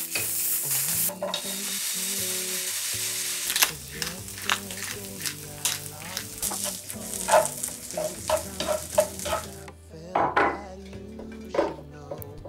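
Food sizzling in a frying pan, first a scored sausage, then sliced onions being stir-fried, with a utensil knocking and scraping the pan in a quick, irregular rhythm. Near the end the sizzle drops away, leaving a few soft scrapes of a spoon spreading mustard on bread.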